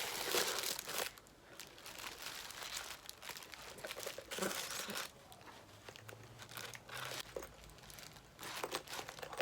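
Packaging crinkling and rustling as it is handled, in irregular bursts, loudest in the first second.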